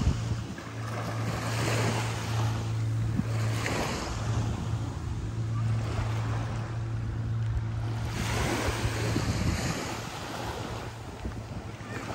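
Sea waves washing ashore in repeated swells. Under them runs the steady low drone of a boat engine, which fades out about ten seconds in.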